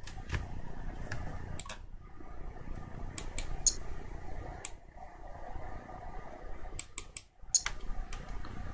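Computer mouse clicking at irregular intervals, with a cluster of quick clicks near the end, over a steady low room hum.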